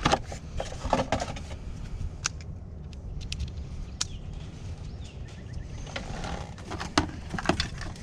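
Scattered light clicks and plastic knocks from a 2008 Pontiac G6's turn signal switch and steering-column plastics being handled during the switch swap, over a low steady hum.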